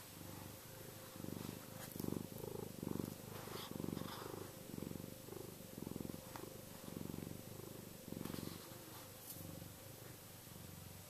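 Domestic cat purring: a steady low rumble that swells and eases with each breath in and out, a little under a second per swell.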